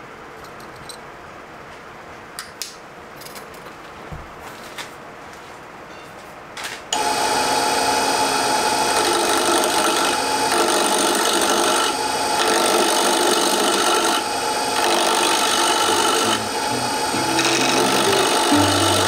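A wood lathe starts up about seven seconds in and runs steadily while a hand-held turning tool cuts a small wooden spindle between centres. Before that there are a few light clicks.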